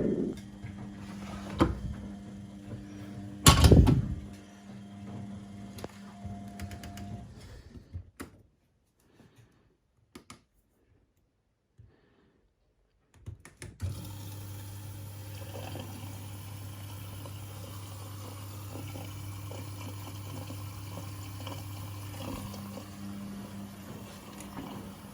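Laundry machines running: a steady motor hum with a loud knock about three and a half seconds in and water sounds. The hum drops away to near silence in the middle, then a steady hum takes up again.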